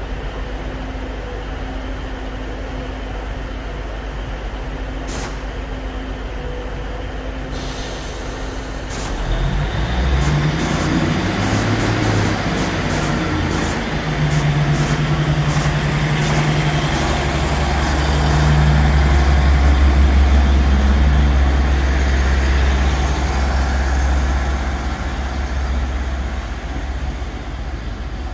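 Class 150 Sprinter diesel multiple unit's underfloor diesel engines idling, then opening up as the train pulls away. About ten seconds in, the engine note rises into a louder, deeper drone. It is loudest just past the middle and eases off near the end, with scattered short clicks and hisses along the way.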